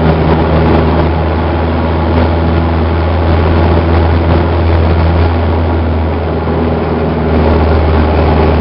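RV-4's 160 hp four-cylinder Lycoming engine and propeller running steadily at power, heard from inside the cockpit as a loud, deep drone.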